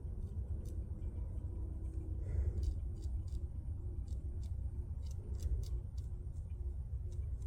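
Steady low rumble of background noise, with faint small clicks and ticks scattered through from a 3D-printed plastic part being held and handled.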